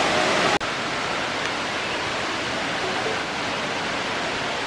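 Steady rushing roar of Talakona's 270-foot waterfall running in heavy flow. It drops out for an instant about half a second in, then carries on slightly quieter.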